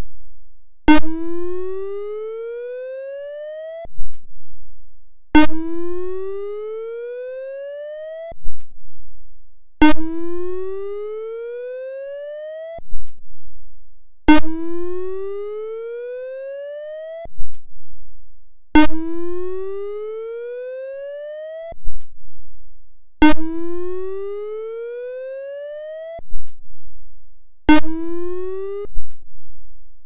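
Whelen ESC-864 siren's whoop signal as raw audio: a rising electronic tone that sweeps up over about three seconds, then breaks off and starts again. It repeats about every four and a half seconds, seven times, and each sweep starts with a sharp click.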